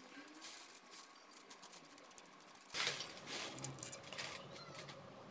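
Ratchet wrench clicking in quick, light ticks while the camshaft holder bolts on a Honda CBR250R cylinder head are backed out, then a louder clatter of metal parts being handled nearly three seconds in.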